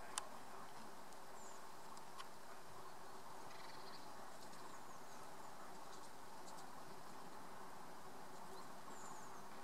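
Quiet, steady outdoor ambience with a faint low hum under it. A sharp click comes just after the start and a softer one about two seconds in, and a few faint high chirps come and go.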